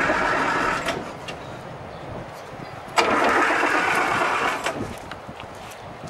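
An old vehicle's engine being cranked by its starter motor in two goes, the first for about a second and the second starting abruptly about three seconds in and lasting under two seconds; the engine does not catch.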